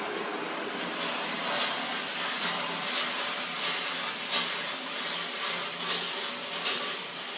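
Kärcher DE 4002 steam cleaner jetting steam from its hand nozzle onto bathroom floor tiles, a steady hiss that swells in level about every two-thirds of a second.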